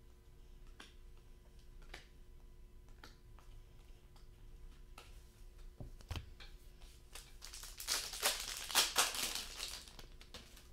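Trading cards slid off a stack one at a time, a soft snap about once a second. A thump comes about six seconds in. Near the end there is a louder, crackling rustle of a trading-card pack's wrapper being torn open.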